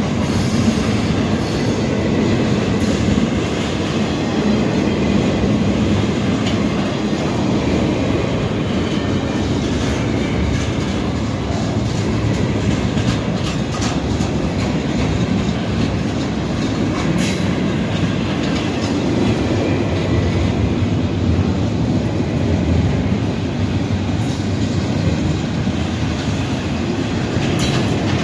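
Double-stack intermodal freight well cars rolling past close by: a steady, loud rumble of steel wheels on rail, with scattered clicks and knocks.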